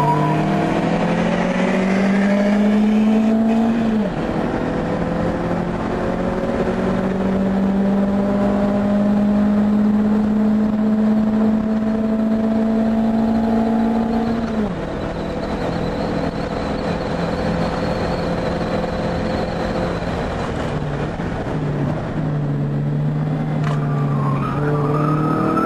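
Proton Satria Neo's four-cylinder engine heard from inside the cabin, revving hard on track. Its pitch climbs for about four seconds and drops sharply. It then climbs slowly through a long pull of about ten seconds and drops sharply again. After that it runs at lower, varying revs and starts climbing again near the end.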